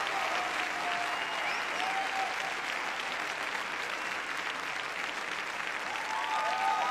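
Large audience applauding steadily at the end of a live song performance.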